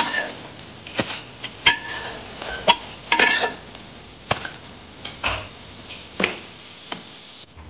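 Metal spatula clinking against an iron wok: a series of sharp metallic clinks with a short ring, about one a second.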